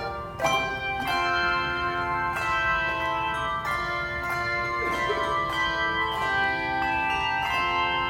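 Handbells playing a tune as an ensemble: chords of bell notes struck every second or so, each ringing on and overlapping the next.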